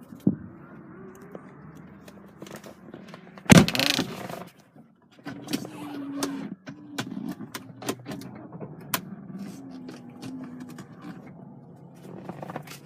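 Electric driver's-seat adjustment motors of a 2008 BMW 320i running in several short runs, each at a slightly different pitch, with switch clicks and one loud knock about three and a half seconds in.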